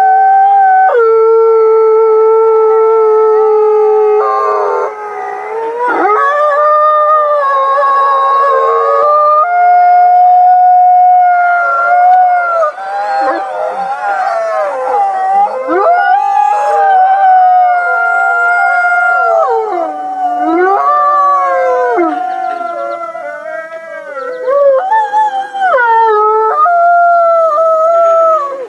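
A chorus of many wolves howling together: several long held and gliding howls overlap at different pitches, rising and falling against each other.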